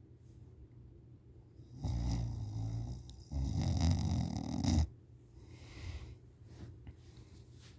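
A person deeply asleep, snoring super loud: a rattling snore about two seconds in, run straight into a louder one that cuts off sharply, then a softer breath out.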